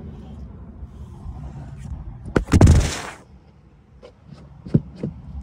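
Handling noise from the phone being moved: over a low rumble, a sharp knock a little over two seconds in and then a loud scraping rustle lasting under a second. After that it is quieter, with a few short clicks near the end.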